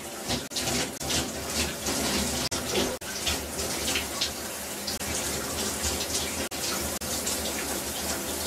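Shower running: a steady spray of water splashing into the tub.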